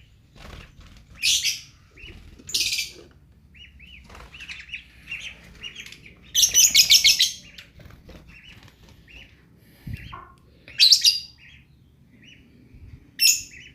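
Lovebirds chirping, with soft repeated calls throughout and several loud, high bursts; the longest lasts about a second, some six seconds in.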